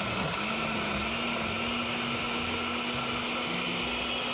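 Countertop blender running at a steady speed, liquidizing a jar of watery tomato-and-chile sauce; its motor hum settles about half a second in and then holds level.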